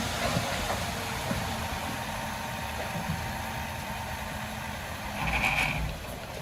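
Heavy diesel earthmoving machine running steadily at low revs, with a brief louder surge and a short high squeal about five seconds in.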